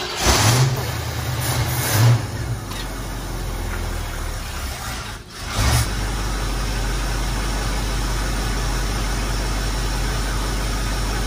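1973 Ford Mustang V8 running on its freshly rebuilt Motorcraft 2100 two-barrel carburetor. It picks up twice in the first couple of seconds, dips briefly about five seconds in, then idles steadily.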